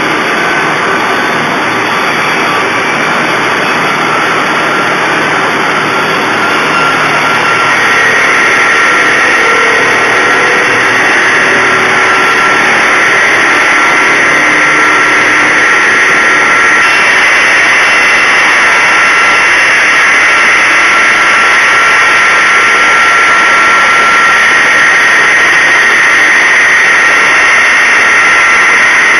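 TsMD-150 multi-blade rip saw machine running with a loud, steady whine. About a quarter of the way in it grows louder and higher whining tones come in.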